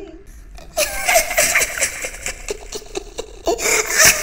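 A person laughing in breathy laughs that start about a second in.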